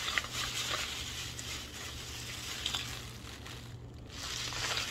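A thin plastic shopping bag crinkling and rustling as it is handled, with a brief pause about four seconds in.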